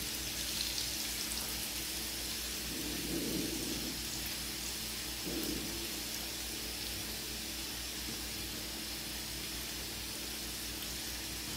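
Breaded banana-peel strips frying in very hot oil in a frying pan: a steady sizzle.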